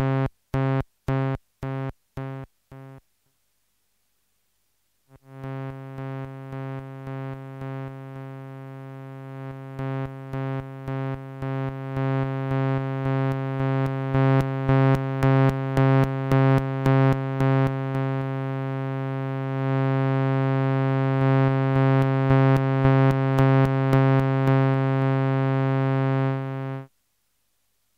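MFOS Sound Lab Mini-Synth playing a low buzzy oscillator tone through its VCA, modulated by the LFO. At first the tone is chopped fully on and off about twice a second, then it stops about three seconds in. After a short gap it returns as a continuous tone pulsing in loudness about twice a second, growing louder in steps, and cuts off near the end.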